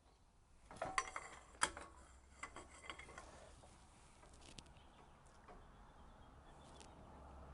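Breaker bar and socket clicking and creaking under strain on a seized suspension nut, a cluster of sharp metallic clicks about a second in, then a few faint ticks.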